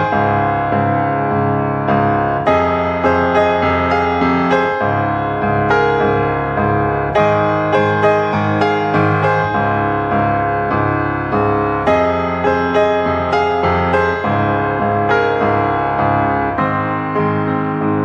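Background piano music: a gentle keyboard piece of repeated chords and melody notes.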